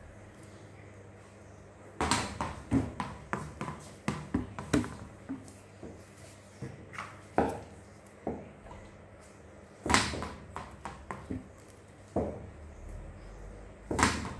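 A cricket practice ball being struck and bouncing on a hard floor in a small room: sharp knocks, the loudest about two seconds in, near ten seconds and near the end, with a run of smaller, quickening bounces after the first.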